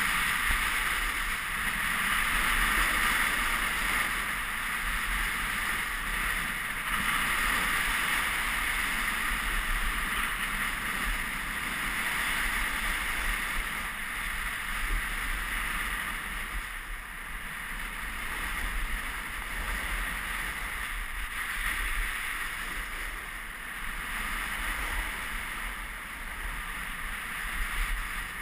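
Steady rush of wind and snow hissing under a downhill run on groomed snow, heard through a GoPro camera, swelling and easing slightly.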